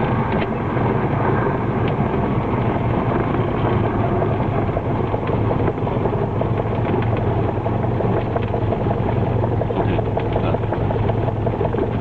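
Cessna 172 Skyhawk's piston engine and propeller running steadily at low power, a continuous drone heard from inside the cabin while the plane rolls along the runway after landing.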